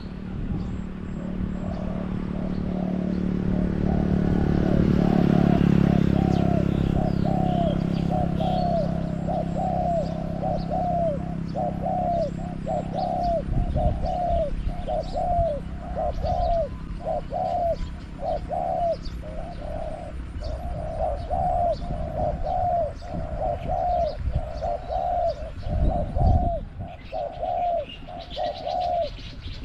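Spotted dove cooing in a long, steady run of repeated notes, with small birds chirping faintly above it. A low rumble swells and fades in the first several seconds, and there is a dull thump near the end.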